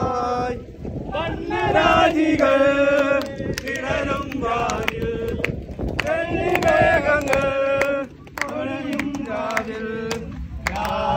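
Voices singing together, a slow chant-like melody in long held phrases, with short breaks about a second in and about eight seconds in.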